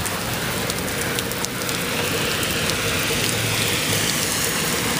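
Steady rain falling, with scattered drops ticking sharply close to the microphone.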